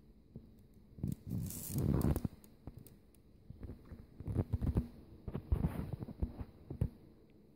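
Irregular rustling and soft bumps close to the microphone, loudest in two spells, about a second in and again from about four seconds in. It is blanket rustle and handling noise as kittens shift about in a blanket-lined wicker basket.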